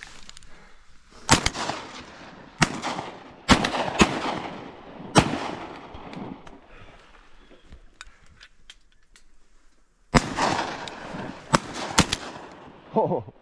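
Shotguns firing at incoming ducks: about four or five shots in the first few seconds, then a quieter gap, then a second burst of about three shots near the end. Each shot is sharp and trails off in an echo.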